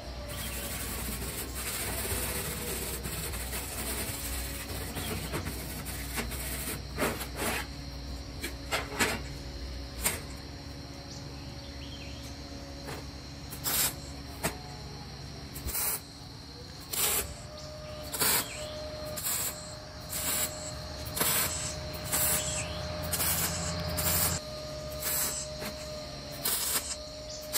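MIG welder tack-welding expanded steel mesh onto a rack frame: a run of short crackling bursts, a few early and then about one a second through the second half.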